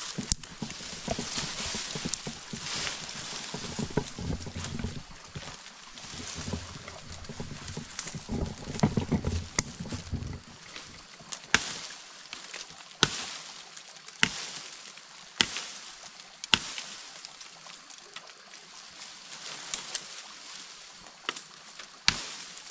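Rustling of leaves and brush in the first half. From about halfway on, sharp machete chops into vines and branches come roughly one a second, with a pause between the bursts.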